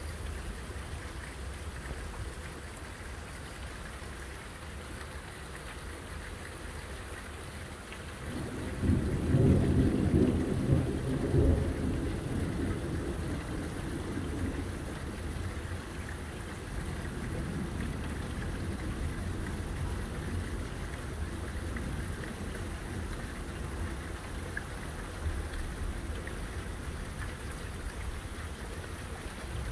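Steady rain falling through a thunderstorm. About a third of the way in a loud, crackling clap of thunder rumbles for a few seconds, and a fainter rumble follows a few seconds later.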